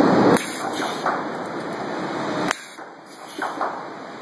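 Stud welding gun firing studs onto a steel plate: loud bursts of noise that cut off abruptly, one just under half a second in and another ending in a sharp crack about two and a half seconds in, with fainter short bursts after.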